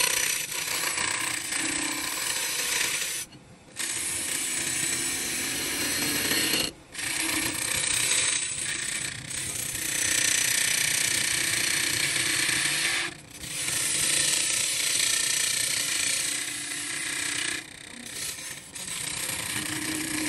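Power tool cutting into wood, running in long stretches broken by a few brief pauses where the tool comes off the work.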